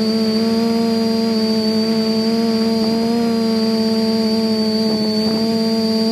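Quadcopter's electric motors and propellers whining at a steady, slightly wavering pitch, picked up by the onboard camera.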